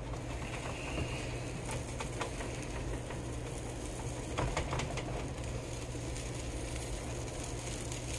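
A plastic slotted spatula scraping and tapping lightly around the edge of a pancake in a nonstick frying pan, heard as a few scattered clicks over a steady low hum.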